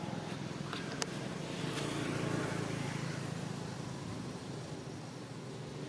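A steady low engine-like hum running in the background, with a single sharp click about a second in.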